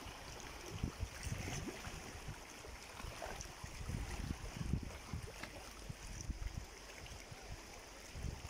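Small seawater waves lapping and splashing over low shoreline rocks in shallow water, with wind buffeting the microphone in irregular low thumps.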